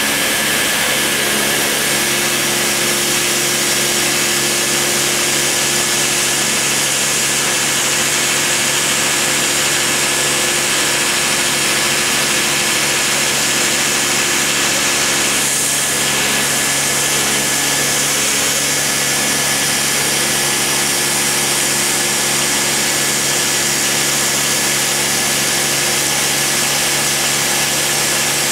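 Dremel rotary tool spinning at high speed, its small bit cutting a groove in MDF: a steady whine over a constant high hiss.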